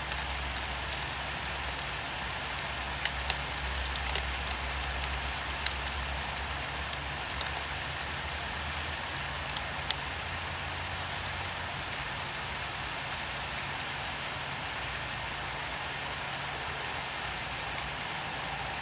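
Steady rain hissing, with scattered sharp drips tapping on a surface during the first half. A low rumble underneath fades out about halfway through.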